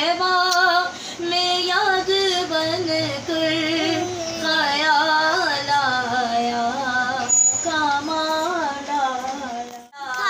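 A woman singing a naat, an Urdu devotional song in praise of the Prophet, unaccompanied, in long held notes with wavering ornaments.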